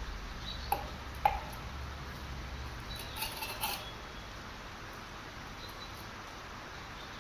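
Light clicks and taps from a plumb bob and its string being handled against a straight edge: two sharp clicks about a second in, then a few softer ticks around three seconds in, over a faint low hum that drops away about four seconds in.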